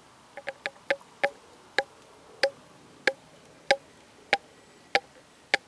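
A small 1-ounce bottle of thick trapping lure draining upside down into a squirt bottle, glugging as air bubbles enter it. There is a quick run of five sharp pops, then pops at an even pace of about one every 0.6 seconds.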